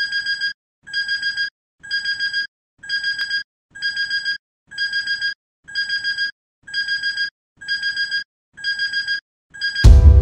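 Digital alarm clock beeping: groups of four quick high-pitched beeps, repeated about once a second. Near the end the beeping is cut off by a sudden loud low thump as music begins.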